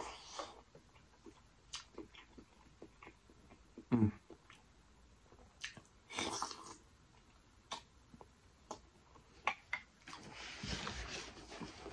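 Close-miked eating sounds: wet chewing of a sauce-soaked boiled egg, with scattered mouth clicks and smacks. A short low hum comes about four seconds in, a brief slurp off the spoon about six seconds in, and a longer stretch of wet chewing near the end.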